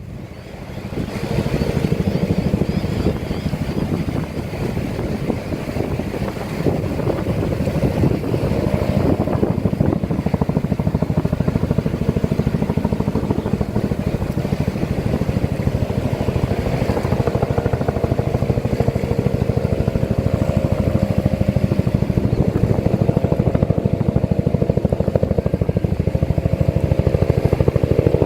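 An engine running steadily with a fast, even pulse, coming up in level over the first second or two.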